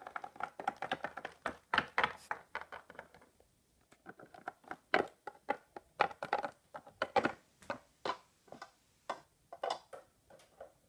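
Small plastic toy figures tapping and clicking against a wooden tabletop as they are hopped along and set down: a quick, irregular run of light knocks with a brief lull about a third of the way in.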